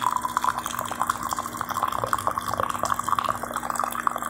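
Hot black coffee poured in a steady stream into a ceramic mug: a continuous splashing trickle of liquid.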